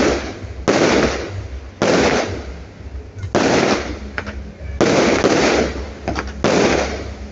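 Aerial firework shells bursting one after another, about six booms in seven seconds, each trailing off, with a few smaller crackles between them.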